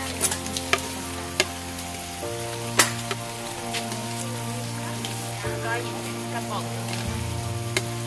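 A crab stir-fry sizzling in a pan, with a few sharp clicks, the loudest about three seconds in, under background music.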